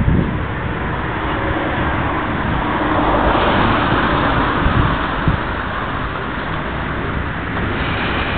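Street traffic noise as a car passes close by: its tyre and engine noise swells about three seconds in and eases off near the end, with some wind rumble on the microphone.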